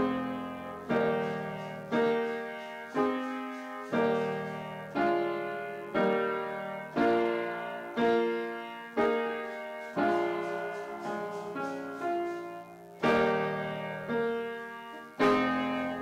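Upright piano played slowly, one chord struck about once a second and left to ring out, with a brief run of quicker notes about halfway through.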